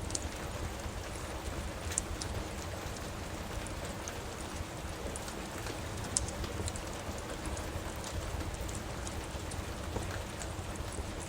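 Steady rain with scattered sharp crackles and pops from a wood fire in a fireplace.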